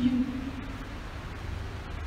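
Steady hiss and low hum of room tone in a large hall, with a short low voiced sound at the very start.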